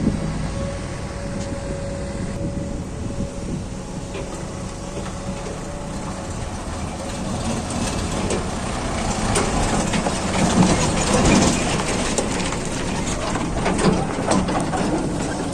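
XCMG XE215C hydraulic excavator running steadily at work with a constant engine tone. From about eight seconds in, a louder rattling, crunching stretch of loose stony material scraping and spilling joins it, peaking a couple of seconds later and again near the end.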